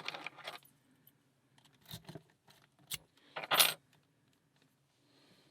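Lock picks and a tension tool working in a Paclock 100G padlock: scattered metallic clicks and rattles, with a louder rattle about three and a half seconds in.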